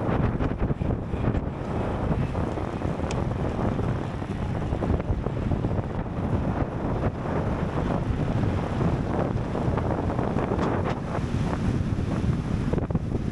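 Wind rushing over the microphone of a camera riding on a racing bicycle at speed: a steady, low, buffeting noise.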